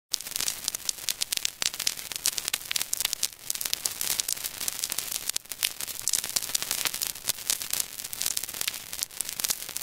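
Crackling static: a dense run of clicks and pops over hiss, starting abruptly out of silence.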